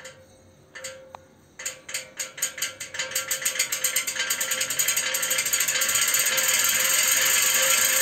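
Atomberg BLDC ceiling fan starting up: a ticking rattle that repeats faster and faster as the blades gather speed and merges into a continuous rattle after about six seconds, over a steady whine. It is an abnormal noise from a fan only a month old.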